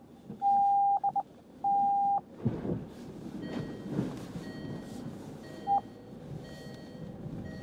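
Loud electronic beeps inside a Land Rover Freelander 2's cabin: two long steady beeps with a few short pips between them in the first two seconds, then one brief pip later. Under them come irregular knocks and rattles from the suspension and cabin as the vehicle rolls over a rocky track.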